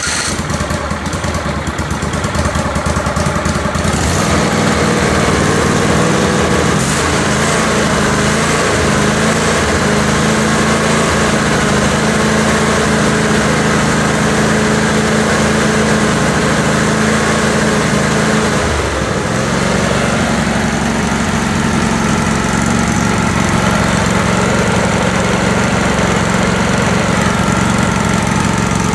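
Kohler CV725S 25 hp air-cooled V-twin engine running steadily on a stand, its note shifting about four seconds in and again about two-thirds of the way through.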